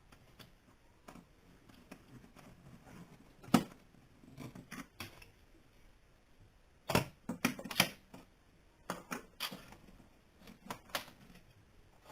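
Scattered sharp clicks and knocks of small hard objects being handled on a workbench. There is one loud click about three and a half seconds in, and a quick run of clicks around seven to eight seconds in.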